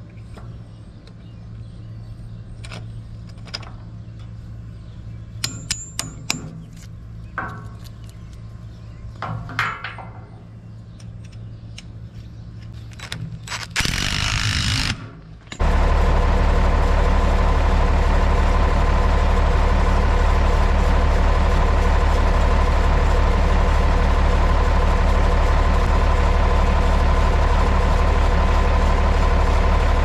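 Scattered clicks and knocks over a faint low hum. Then, about fourteen seconds in, a tractor engine is cranked over for about a second, catches and runs loud and steady with a deep drone.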